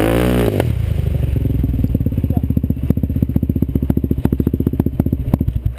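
Sport quad's engine revving as it drives into river water, dropping in pitch about half a second in, then running in rapid low chugging pulses as the quad bogs down and gets stuck. The engine cuts off suddenly at the end.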